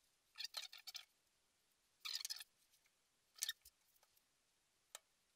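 Four short scratchy bursts of handling noise, the last a brief click, as wood glue is squeezed from a plastic bottle onto small wooden bowl pieces.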